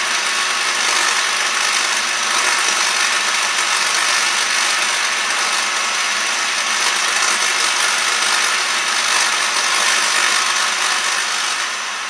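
Vacuum cleaner running steadily, blowing air across a high-voltage spark gap that is fed by a microwave oven transformer and sparking continuously; the combined rushing noise starts to fade near the end as the power goes off.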